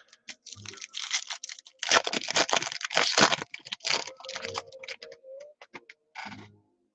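The foil wrapper of a trading-card pack crinkles as it is torn open and the cards are slid out. It is a quick run of sharp rustles, busiest about two to three seconds in, that thins out and stops near the end.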